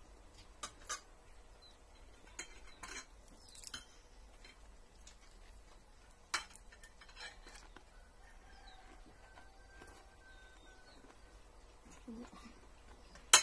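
Spoons and forks clinking and scraping against ceramic plates as people eat, in scattered sharp clicks, the loudest one near the end.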